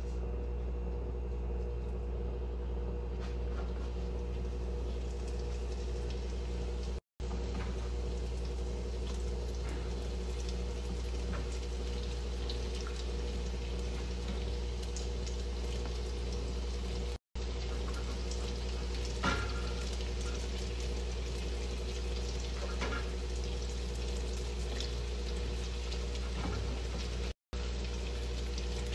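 Hot oil sizzling and bubbling in a frying pan as pieces of ma'amoul dough deep-fry, with scattered small pops, over a steady mechanical hum. The sound cuts out briefly three times.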